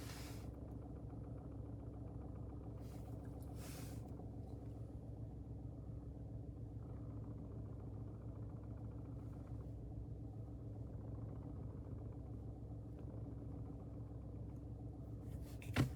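Ford Focus Mk4 1.0 EcoBoost three-cylinder engine idling steadily with a rattle, the kind of noise the uploader links to a failing dual-mass flywheel. A single sharp click comes just before the end.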